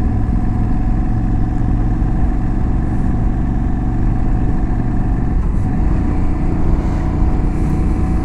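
Aprilia Tuareg 660's parallel-twin engine running under way at a steady, nearly even pitch.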